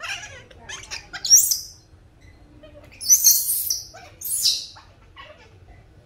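Baby monkey squealing: a few softer calls, then three loud, very high-pitched shrieks, the longest lasting nearly a second.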